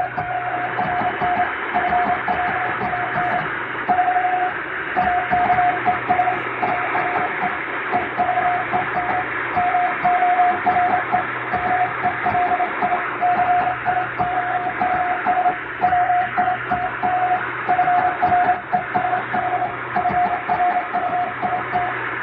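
Morse code (CW) tone keyed in steady dots and dashes, sending an English-language telegram text, over shortwave-style static hiss and a low hum. The noise swells and sinks in imitation of shortwave fading.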